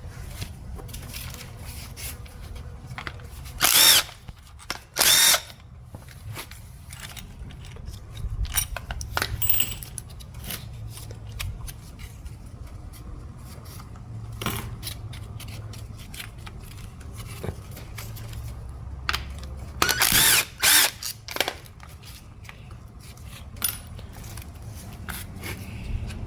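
Cordless power drill-driver spinning out bolts on the transmission's valve body in short bursts: two about four and five seconds in, then two more close together around twenty seconds. Light metallic clicks of tools and bolts come in between.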